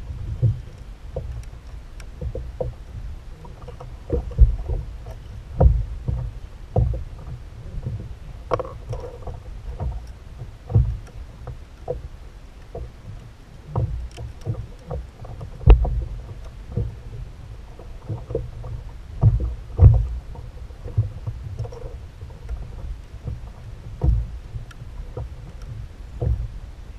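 Kayak at sea: irregular knocks and thumps of gear against the plastic hull over a steady low rumble of water and wind.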